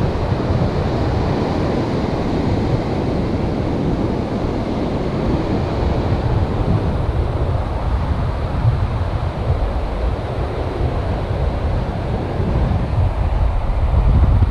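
Strong wind buffeting the microphone in gusts over the steady rush of breaking sea surf. The gusts grow a little stronger near the end.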